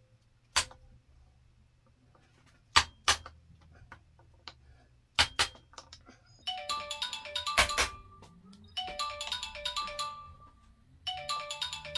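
Hammer blows on a hand impact driver loosening the crankcase screws of a Yamaha PW80 engine: about six sharp metallic knocks, some in quick pairs. From about halfway, a mobile phone plays a repeating ringtone melody in three phrases over the knocks.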